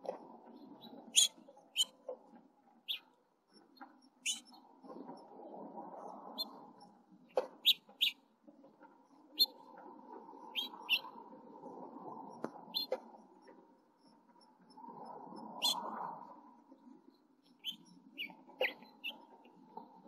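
House finches at the nest: short, sharp, high chirps scattered through, many in quick pairs, while the male feeds the begging nestlings. A low, noisy sound swells and fades in several stretches underneath.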